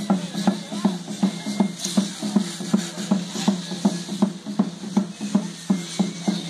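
Processional dance music, a steady drumbeat of about three strokes a second over a continuous low hum, the accompaniment of a masked traditional dance.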